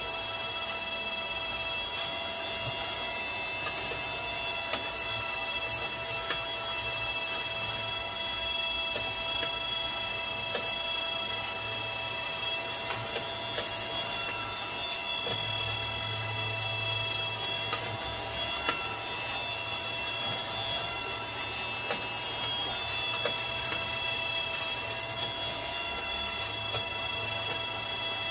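Kaleido M10 Sniper Pro electric coffee roaster running its cooling fan with a steady, several-toned whine and a low hum, with light scattered clicks. It is cooling a freshly dropped sample roast.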